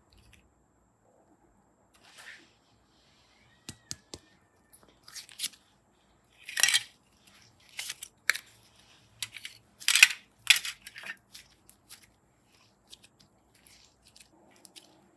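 Slime being handled: irregular crinkly crackles and a few sharp clicks, with the two loudest crackles about seven and ten seconds in.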